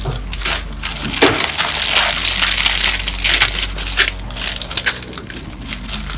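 Thin clear plastic shrink wrap being pulled and torn off a bundle of sealed parts bags, crackling and crinkling, with the small plastic bags of bricks rustling as they are handled and spread out.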